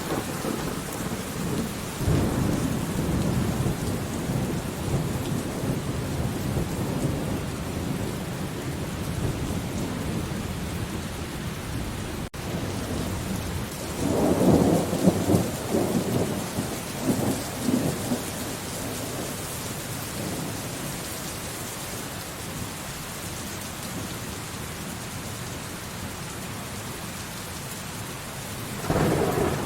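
Steady heavy rain with rolling thunder. A rumble comes about two seconds in and fades slowly, a louder peal breaks into several cracks around the middle, and another rumble begins near the end.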